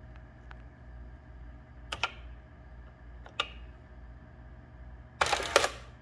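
A 1970s electric office machine running with a steady motor hum, with single sharp mechanical clicks about two seconds in and again a second and a half later, then a short rattling clatter, the loudest part, a little after five seconds.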